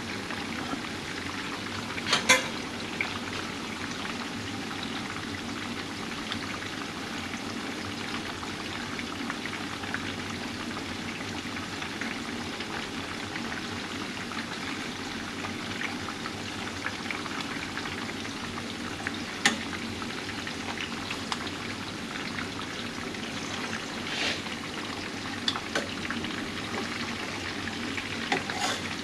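Pompano fillets frying in vegetable oil in a high-walled pan, a steady sizzle, with a few sharp clicks, the loudest about two seconds in.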